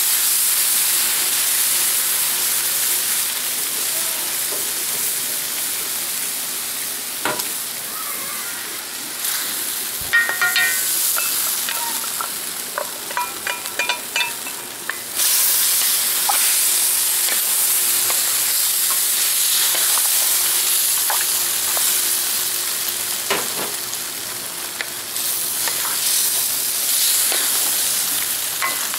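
Beef, onions and bell peppers sizzling steadily in a hot wok as the cornstarch-and-soy gravy cooks in, stirred with a wooden spoon. Around the middle there is a run of light metallic clinks and scrapes, then the sizzle swells again, along with a few single knocks of the spoon.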